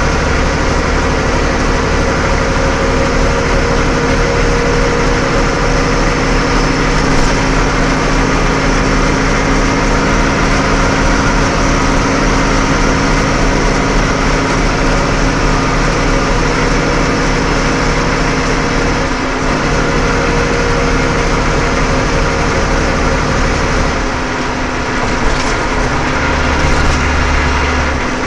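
Steady engine and road noise of a truck driving at speed, with the low engine hum shifting slightly about two-thirds of the way in and again near the end.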